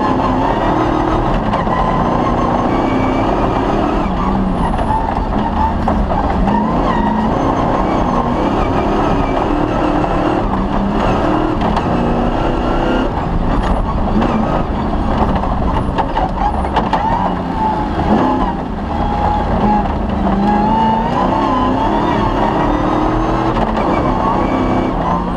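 Off-road rally car running hard on a rough stage: the engine's revs rise and fall over a continuous rumble, with scattered knocks and rattles.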